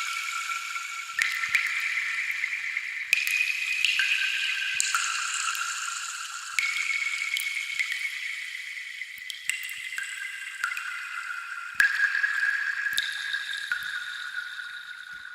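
Water-drop sound effect: high, ringing drop notes at different pitches, a new one every second or two. Each note rings on and slowly fades under the next, like a slow, reverberant melody.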